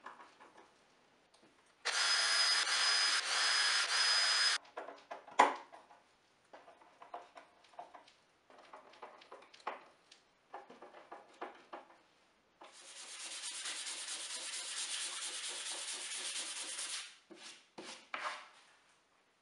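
A cordless drill driving screws into the plywood base of a crosscut sled. The first run of about two and a half seconds is loud, with a steady high whine that breaks off briefly about every half second. Scattered small ticks and knocks follow, then a second, quieter run of about four seconds near the end.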